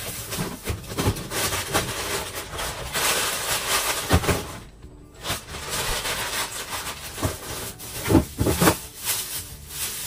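Plastic food bags and packets rustling and crinkling as frozen food is handled and shifted around in freezer drawers, with small knocks of packets and drawers, easing off briefly midway.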